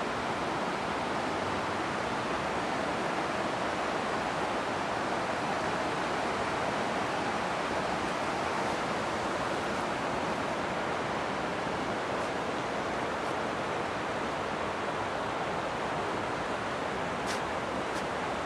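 The Adige river in flood: a steady rush of fast-flowing, muddy floodwater.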